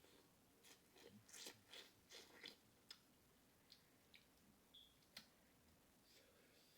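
Faint close-up chewing and lip-smacking: a quick run of wet smacks in the first two or three seconds, then a few scattered sharp clicks.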